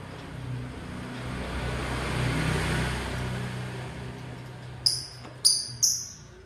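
A motor vehicle passing, its noise and engine hum swelling and then fading away, followed near the end by three sharp, high lovebird chirps.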